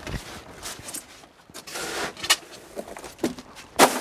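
Irregular knocks, scuffs and clatter of gear being handled on the deck of a small open fishing boat, with one loud sharp knock near the end.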